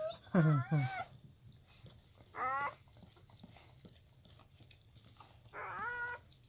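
Newborn German Shepherd puppies crying in short, high-pitched squeals, twice, with a louder, lower two-note vocal sound about half a second in.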